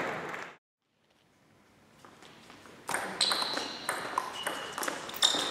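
Crowd noise cut off half a second in, then silence. About three seconds in, a table tennis rally begins: sharp clicks of the celluloid ball off rubber-faced bats and the table, a few a second, echoing in a large hall.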